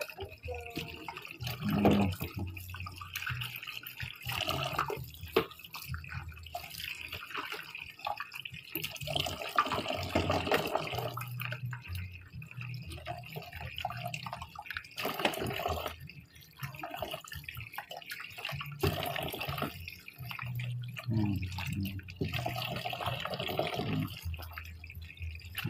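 Tap water running and splashing into a stainless steel sink basin of soapy water as baby bottles and silicone nipples are scrubbed and rinsed by hand, with irregular splashes and small knocks.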